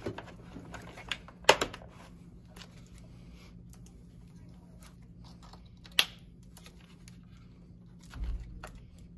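Sharp plastic clicks and snaps from an RC truck's battery compartment as a LiPo battery's hold-down is locked and its connector is plugged in, with light rustling of wires between. The clearest clicks come about a second and a half in and again about six seconds in, and a dull low knock follows near the end.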